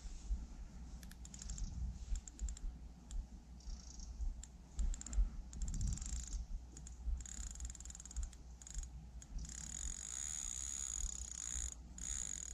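Carp fishing reel ticking in rapid runs of clicks while the rod is bent under the pull of a hooked carp, with a steadier high buzz near the end.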